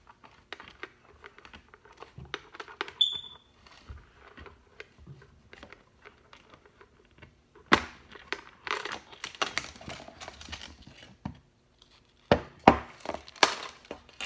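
Handling of a hard plastic toy container and its small parts: a run of light clicks, taps and crinkles, with a brief high squeak about three seconds in and a few sharper knocks around eight seconds and near the end.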